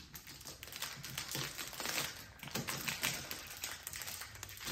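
Foil wrapper of a Pokémon trading-card booster pack being torn open and crinkled by hand, a quick run of crackles.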